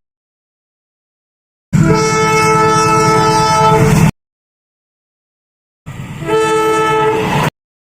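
Two locomotive horn blasts, each a steady chord of several tones over a low rumble: first a CC 201 diesel-electric locomotive's horn sounding for about two and a half seconds, then, after a gap of silence, a CC 204's horn for about a second and a half, starting softer before sounding at full strength.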